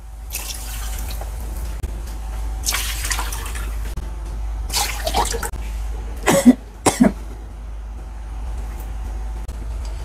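Water sloshing in a nonstick wok as it is poured in and stirred with a wooden spatula, with several scrapes and clatters of the spatula against the pan. The two loudest come about six and a half and seven seconds in, over a steady low hum.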